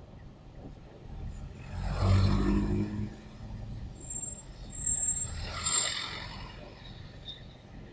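Town street traffic: a vehicle's engine and tyre noise swells loudly as it passes about two seconds in, then a second, lighter swell of passing traffic around five to six seconds, over a steady low traffic rumble.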